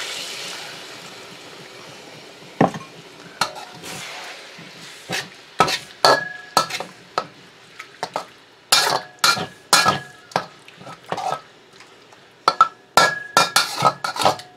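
Juice sizzling as it hits a hot steel wok, the sizzle dying away over the first two or three seconds. Then a metal spoon stirring and scraping in the wok, with repeated clinks and knocks, some of them ringing briefly off the wok.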